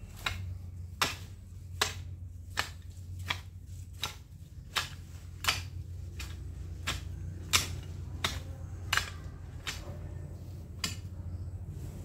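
A long-handled garden tool chopping into weedy ground, a sharp strike about every 0.7 seconds, around fifteen in all.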